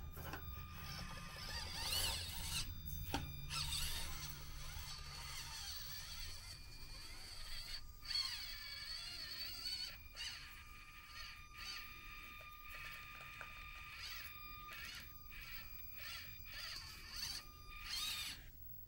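Axial SCX24 micro RC crawler's small brushed electric motor and gearbox whining as it crawls. The high whine wavers in pitch with the throttle and keeps stopping and starting.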